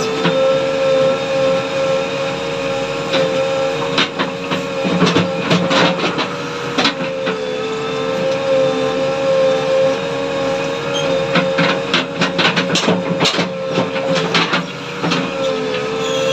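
JCB 3DX backhoe loader running steadily with a constant humming tone, with bursts of clanks and knocks from the digging and loading about four to seven seconds in and again from about eleven to fourteen seconds.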